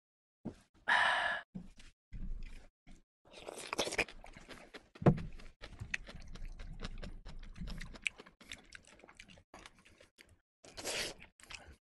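Close-miked eating sounds: a breathy exhale just after a swallow of drink about a second in, then chopsticks clicking against the plate and rice bowl and wet chewing of a soft braised dish with rice.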